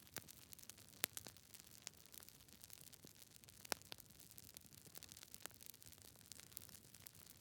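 Wood fire crackling: a faint steady hiss with irregular sharp pops and snaps, the loudest about a second in and near four seconds in.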